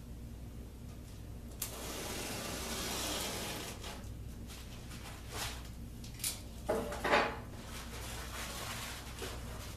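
Utility knife cutting through a carpet tile along a metal square: a click about one and a half seconds in, then a scraping cut lasting about two seconds, followed by several shorter scrapes and handling of the tile, the loudest near seven seconds.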